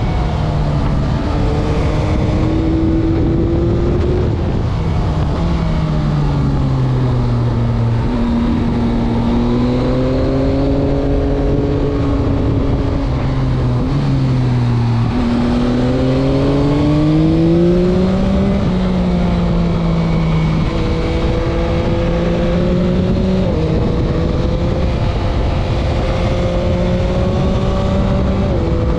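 2021 Yamaha MT-09's inline three-cylinder engine heard from the rider's seat while cornering, its pitch rising under acceleration and falling off again, with several gear shifts. Steady wind rush runs under it.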